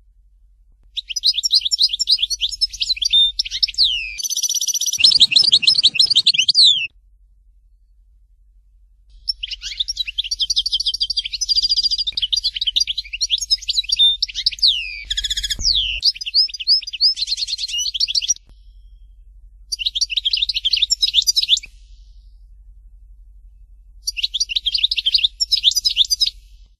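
Algerian goldfinch singing: four bursts of fast twittering and trills, the longest lasting about nine seconds, separated by short pauses.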